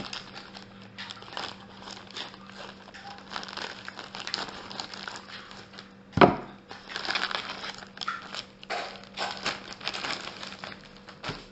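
Plastic wrapping around a new air filter crinkling and rustling as it is pulled off by hand, with one sharp knock about six seconds in.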